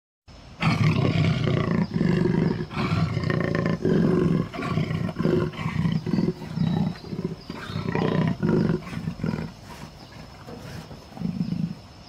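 Tiger calling in a long series of short, low calls, each under a second, then a pause and one last call near the end.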